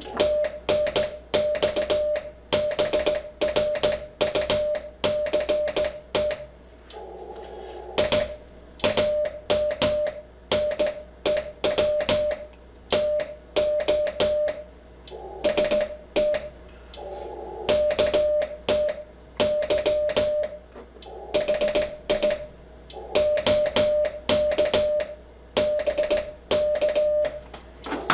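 Morse code sent by hand on a straight key, heard as the Icom IC-7300's CW sidetone: a steady mid-pitched beep keyed on and off in uneven dots and dashes, with a click at each press of the key. In a couple of pauses between words, a band of receiver hiss comes through briefly.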